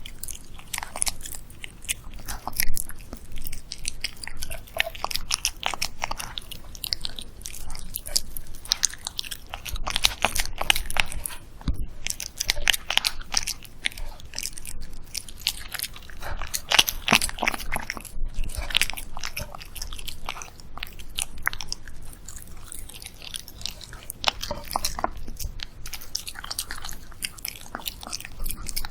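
A dog eating close to the microphone: irregular wet chewing and biting with small crunches, coming in busy clusters with brief pauses, as it works through homemade food of steamed kabocha squash, beef, egg and apple.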